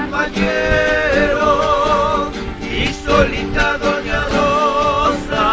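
Two acoustic guitars strummed while a man sings along, his held notes wavering with vibrato.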